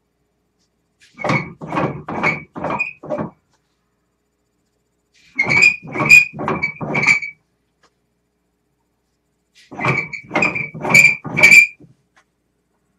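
A dog barking off camera in three short runs of five or six quick barks each, with pauses of about two seconds between the runs.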